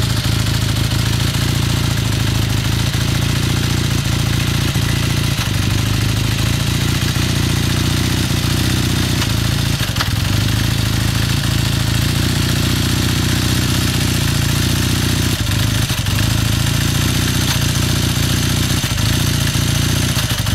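1981 Kawasaki KZ440 parallel-twin engine idling steadily while warming up, with a knocking noise in its running.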